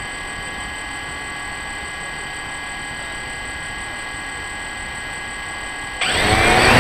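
DJI Phantom quadcopter's motors whining steadily on the ground, then about six seconds in throttling up sharply, louder and rising in pitch, as the drone lifts off.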